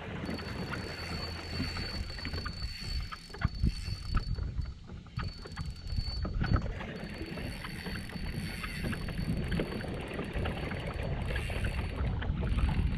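Water sloshing against a fishing kayak's hull, with scattered knocks on the boat and a faint steady high-pitched whine.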